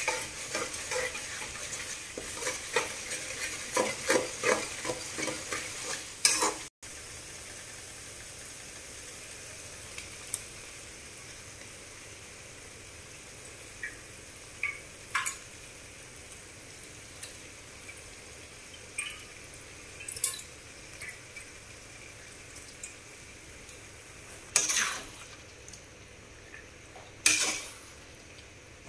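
A metal spoon stirring and scraping thick masala gravy in an aluminium kadai while it sizzles, with frequent clicks against the pan. After a short break about seven seconds in, a steady sizzling hiss with scattered spoon taps, then louder scraping near the end as chicken pieces are stirred into the gravy.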